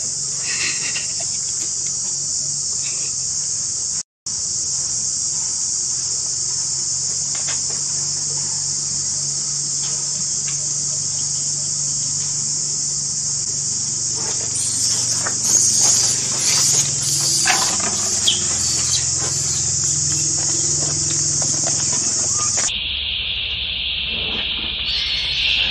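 Loud, steady, high-pitched insect chorus that cuts out for a moment about four seconds in. In the second half, scuffling and clicking sounds join it, and near the end it switches abruptly to a lower-pitched insect drone.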